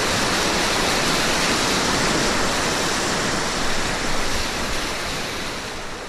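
Rushing whitewater of a river running high in flood, a steady, even churning of water heard from a kayak in the rapids, slowly fading out over the last seconds.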